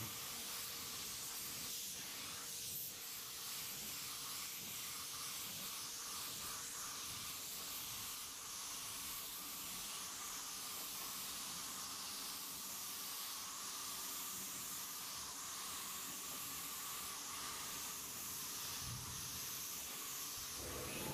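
Compressed-air paint spray gun hissing steadily as it atomises paint onto a pickup truck's body panels.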